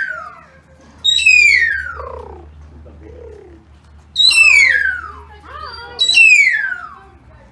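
Cockatoo giving three loud, falling whistled calls, each sliding down in pitch over most of a second, a few seconds apart.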